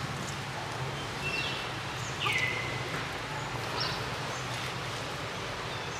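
Outdoor forest ambience: a steady low hum under a soft background haze, with a few short whistled calls that fall in pitch, the clearest about two seconds in.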